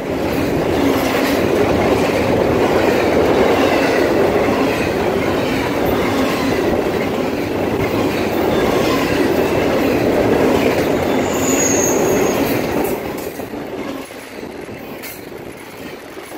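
Double-stack intermodal well cars rolling past: a steady rumble and rattle of steel wheels on rail, with faint high wheel squeal. The noise drops noticeably about thirteen seconds in.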